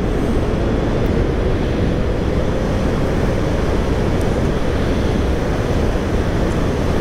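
Steady rush of wind and road noise on a rider-mounted microphone as an electric motorcycle accelerates at full throttle from about 40 to over 60 mph.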